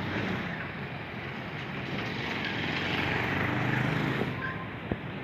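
A motor vehicle passing on the street: a steady engine and road noise that swells to its loudest about four seconds in, then drops away. One sharp click near the end.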